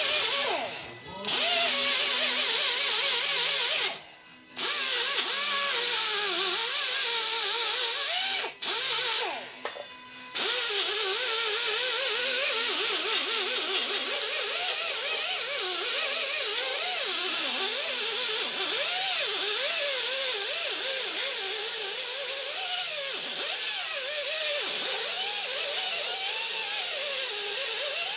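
Right-angle die grinder with a medium-grit Roloc disc grinding the edges of drilled holes in a car subframe, its pitch wavering up and down as the disc bears on the metal. It lets off and stops briefly a few times, about 4 and again 9 to 10 seconds in.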